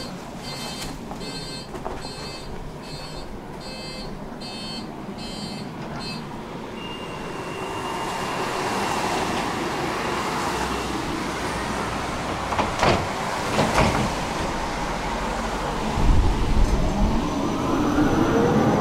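Tram door warning signal beeping about one and a half times a second, stopping about six seconds in. The tram then pulls away: its running noise builds, two knocks come from the wheels a few seconds later, and near the end the traction motors give a rising whine as it accelerates.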